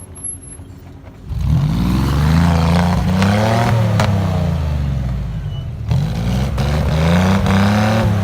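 Off-road vehicle's engine running quietly, then surging loud about a second in, its pitch climbing and falling back; a second climb in revs comes about six seconds in.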